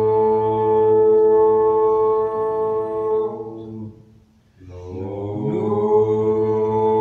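A man chanting a mantra on a long held note, which fades out about four seconds in for a breath; the next note starts low, slides up and is then held steady.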